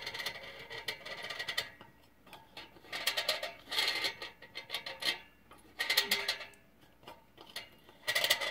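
Tuning knobs on a Motorola T1500 duplexer being turned by hand in four short spells of scratchy clicking with pauses between, as the receive-side peak is fine-tuned.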